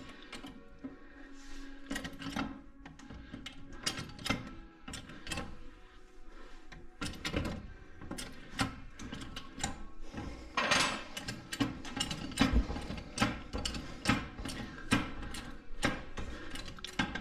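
Hydraulic floor jack being worked under a car's lower control arm, with a run of irregular metallic clicks and clanks that grow louder in the second half.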